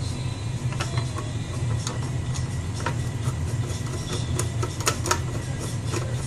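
Irregular small clicks and taps of computer server hardware being handled and worked on, over a steady low hum.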